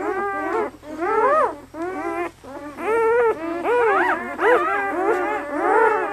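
Newborn German Shepherd puppies, two days old, squealing and whining: several puppies' rising-and-falling cries overlapping almost without a break.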